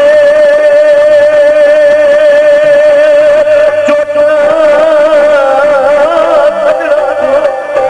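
A male singer holds one long sung note over harmonium accompaniment, in Punjabi folk singing. The note wavers slightly and turns into rapid ornaments in the last couple of seconds.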